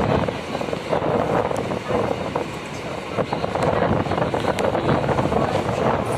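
Passenger train running: a steady rumble with continual rattling.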